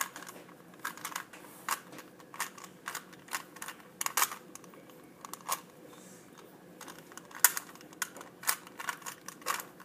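Plastic Rubik's cube being turned by hand: irregular clicking and clacking as its layers are twisted, a few turns a second, with one sharper clack about seven seconds in.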